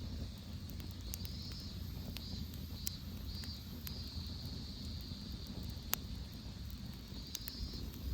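Wood fire burning with a steady low rumble and scattered sharp crackling pops, the loudest about six seconds in. A high, pulsing chirp runs in the background.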